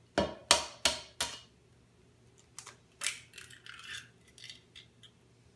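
An egg knocked sharply four times against the edge of a bowl to crack its shell, then another knock about three seconds in, followed by light crackling as the shell is pulled apart.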